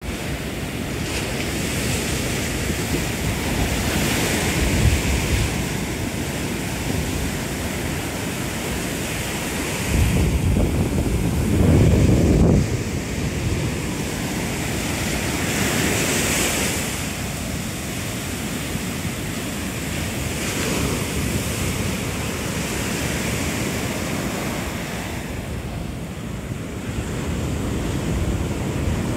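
Ocean surf breaking and washing up the beach in repeated swells, with wind noise on the microphone. The loudest stretch, a deep rumble, comes about ten to twelve seconds in.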